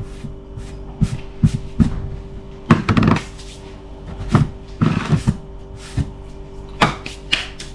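Kitchen clatter of containers and utensils being handled, knocked and set down on a bench while flour is measured out for batter: a dozen or so irregular knocks, over a steady hum.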